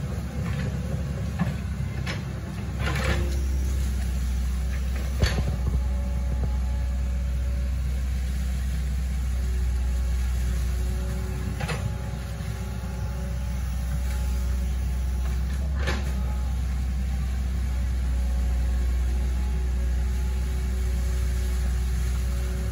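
Hitachi ZX110 excavator's diesel engine running steadily with a deep hum, a faint whine coming and going, and about four sharp knocks.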